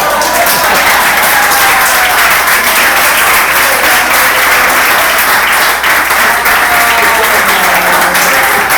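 Audience applauding loudly, a dense run of many hands clapping, with a few faint voices calling out over it.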